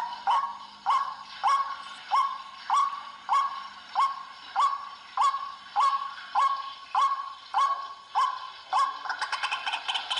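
White-breasted waterhen calling: a harsh, evenly paced call repeated about every half second, each one sharply rising then held, breaking into a faster chatter near the end.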